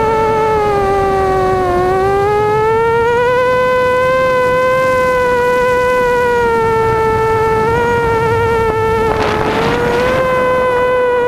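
Immersion Vortex FPV racing quadcopter's brushless motors and propellers whining in flight, the pitch dipping about two seconds in and then wavering as the throttle changes. A brief rush of hiss comes in about nine seconds in.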